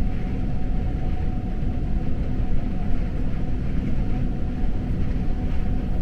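Passenger train running along the track: a steady low rumble with a faint steady hum above it.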